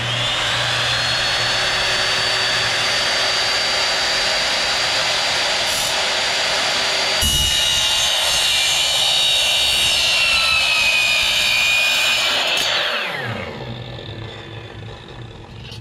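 Sliding compound miter saw starting with a thump, its whine rising quickly up to speed and then running steadily. About seven seconds in the sound changes as the blade cuts through a metal angle strip and the whine sags a little in pitch under the load. Near the end the motor is switched off and winds down with a falling whine.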